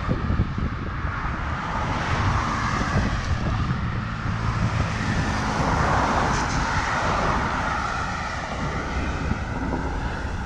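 Steady motor-vehicle traffic passing close by, swelling twice as vehicles go past, with wind rumbling on the microphone.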